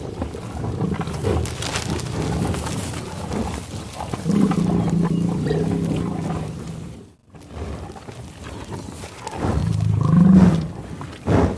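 American bison growling: one long, low, pitched growl starts about four seconds in and lasts a couple of seconds, and a shorter one comes near the end. Snuffling and chewing noises fill the time between.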